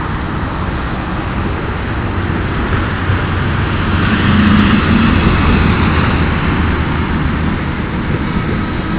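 Airboat's engine and air propeller running with a steady low drone and rushing noise, swelling louder for a couple of seconds around the middle, then easing back.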